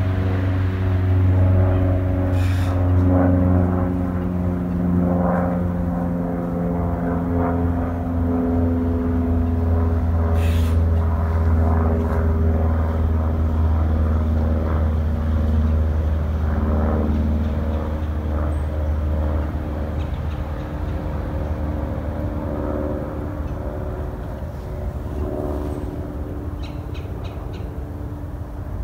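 Piper PA-28R-200 Arrow's four-cylinder engine and propeller droning overhead, the pitch dropping in steps as it passes and the sound slowly fading away. A couple of sharp clicks are heard early on.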